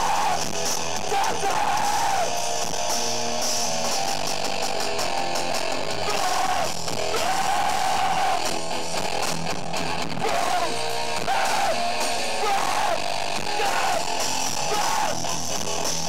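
Hardcore band playing live: distorted electric guitar, bass and drums at full volume, with shouted vocals coming in and out.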